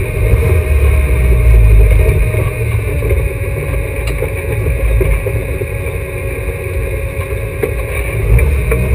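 Alfa Romeo GTA race car's twin-cam four-cylinder engine running at low speed, heard from inside the stripped cabin, louder for the first couple of seconds and then easing off.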